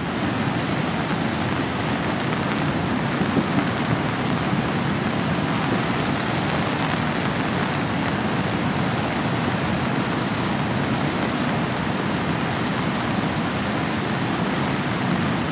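Heavy rain pouring steadily, mixed with the constant rush of a flooding creek.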